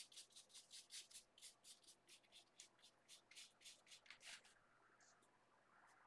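Faint rapid strokes of a paintbrush scrubbing acrylic paint onto canvas paper, about four short brushing rasps a second, stopping about four seconds in.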